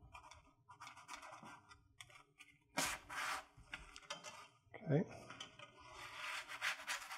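A slotted spatula scraping and rubbing against an air fryer oven's wire mesh rack as a baked stromboli is pried loose from it, in short scrapes with a louder one about three seconds in. A brief falling pitched sound comes about five seconds in.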